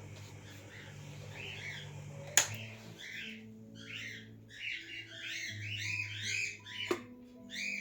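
Music of held low notes that change pitch in steps, with bird chirps repeated over it, thickest in the second half. Two sharp clicks cut through, one about two and a half seconds in and one near the end.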